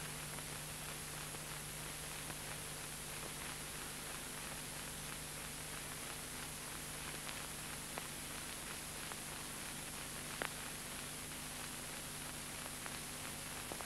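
Steady hiss and faint hum of an old film soundtrack, with a couple of tiny clicks.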